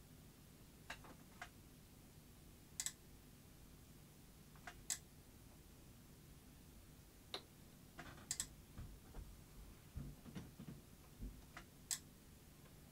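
Faint, sharp clicks at irregular spacing, about ten in all, from in-circuit capacitor testing with an ESR meter: test probes touching the capacitor pads and the meter's remote footswitch. A few soft low knocks come near the end.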